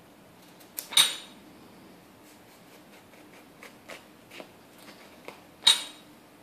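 Kitchen knife peeling the skin off a yellow squash: soft scrapes and small clicks, with two louder sharp clicks, one about a second in and one near the end.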